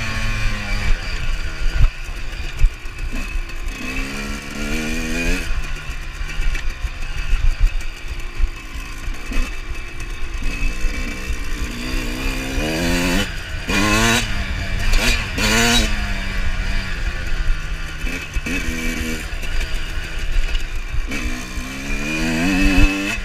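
Two-stroke Suzuki RM motocross bike being ridden hard. The engine revs climb and drop again and again with the throttle and gear changes, with a quick run of short, sharp revs about two-thirds of the way through, over a steady low rumble of wind.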